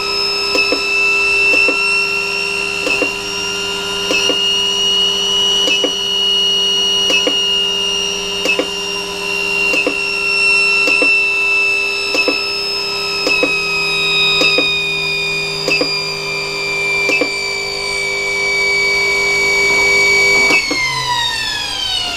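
Small electric motor running on a digital speed controller: a steady high whine with overtones, its pitch drifting slightly up and back down, with a faint tick a little more often than once a second. Near the end the pitch falls steeply as the motor slows down.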